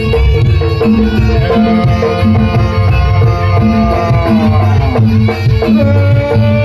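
Loud live traditional Javanese music accompanying a barongan dance. Hand drums beat a steady rhythm, pitched percussion repeats a short figure, and a melody line slides downward in pitch several times.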